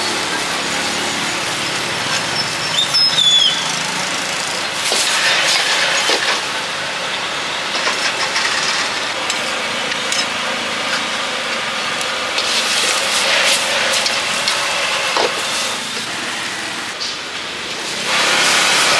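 Stir-frying in a wok over a high-flame gas burner: a steady hiss of burner and sizzling food, with a metal spatula scraping and clanking against the wok now and then, louder about a second before the end.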